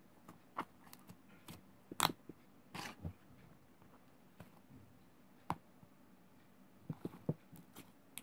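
Thick brown slime being squeezed and poked by hand, giving irregular sticky clicks and pops with short crackles between quiet stretches.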